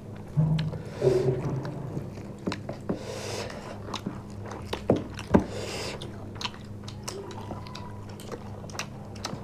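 Close-up mouth sounds of people eating chicken and rice with their hands: chewing, lip smacks and scattered small wet clicks.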